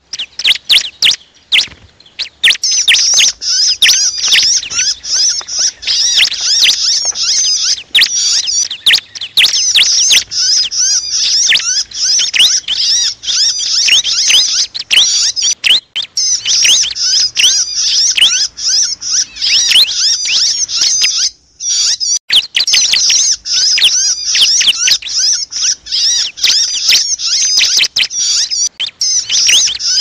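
Bar-winged prinia (ciblek) distress calls, the 'kejepit' or screaming call of a bird pinched in a trap: rapid, shrill, high-pitched chattering that runs almost without a pause and breaks off briefly about two-thirds of the way through. It is used as a lure recording to draw other prinias in.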